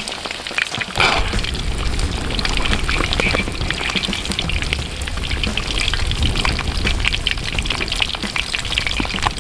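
Duck legs deep-frying in a pan of hot oil, a steady dense sizzle and crackle, with a brief louder surge about a second in. The pieces are near the end of frying, their skin crisping to golden brown.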